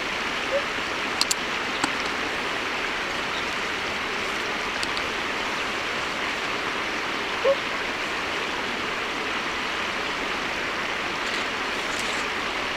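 Steady rush of flowing water, with two brief faint calls, which may be swans, about half a second and seven and a half seconds in.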